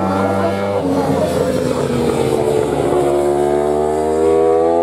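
JSB1000 superbike's inline-four engine passing through a corner: the note falls as the rider slows into the bend, then climbs steadily as he opens the throttle out of it.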